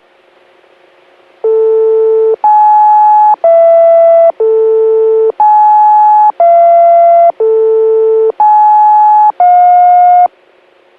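Analog municipal disaster-prevention radio chime heard through a scanner's line output: nine electronic tones of about a second each, a low-high-middle three-note figure played three times. A faint steady hiss and hum from the radio channel sits under and around them.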